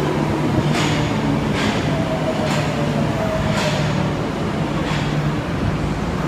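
Marunouchi Line 02 series subway train pulling into the station and slowing. The wheels click over rail joints about once a second, over a steady low hum and a faint falling motor whine.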